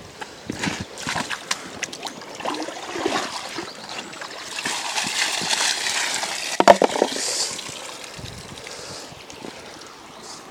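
Water splashing and sloshing in a bucket of muddy river gravel and stones, with scattered knocks from the stones. The splashing is strongest a little past the middle, where one sharp knock stands out.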